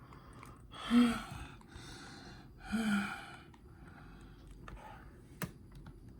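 Two short breathy vocal sounds, like sighs or gasps, about two seconds apart, over a faint steady background hum; a single sharp click near the end.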